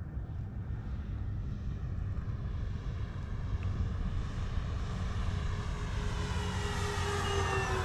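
Flightline P-38 RC model's twin electric motors and propellers whining in flight at about half throttle. The sound grows louder and drops in pitch near the end as the plane passes by.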